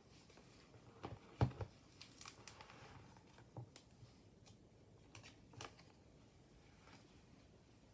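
Pages of a handmade paper junk journal being handled and turned: soft paper rustles and light taps, the loudest a dull tap about a second and a half in.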